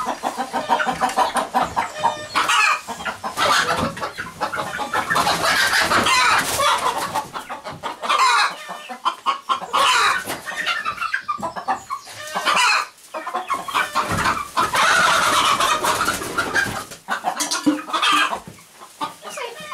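A flock of young chickens clucking and calling almost without pause, many overlapping calls.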